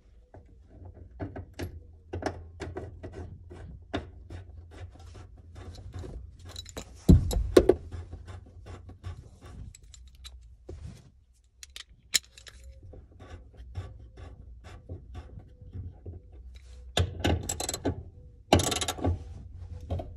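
Small metal nuts and washers clicking and clinking as they are handled and fitted by hand onto the fuel pump mounting plate, with a heavier knock about seven seconds in and rustling, scraping handling noise near the end.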